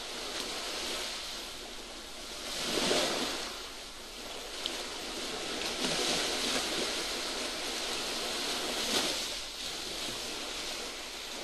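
Sea surf: waves washing in, swelling louder roughly every three seconds over a steady hiss.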